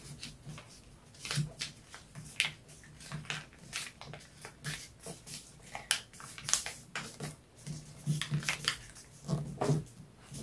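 Sheet of printer paper rustling and crackling as it is folded and creased by hand, in irregular short crinkles.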